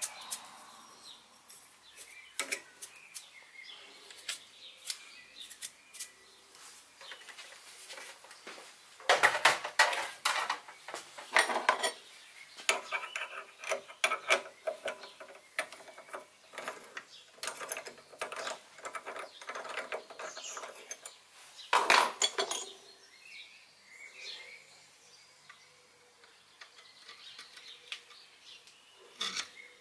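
Intermittent metallic clinks, taps and scrapes from small steel parts being handled on a milling-machine vise, with louder bursts of clatter about nine to twelve seconds in and again around twenty-two seconds. Near the end a steel pin is fitted into a freshly reamed hole.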